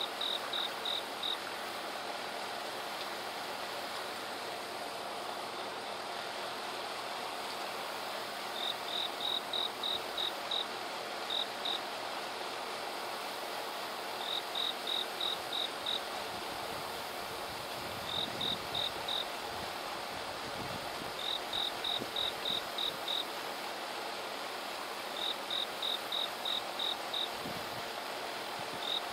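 Insects calling: a steady hiss of insect song, with a short run of about four to seven rapid high chirps repeated every few seconds.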